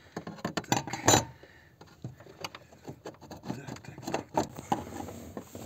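Hand-fitting the retaining ring over a car's fuel pump module: irregular clicks, knocks and rubbing of parts, with a louder cluster of knocks about a second in.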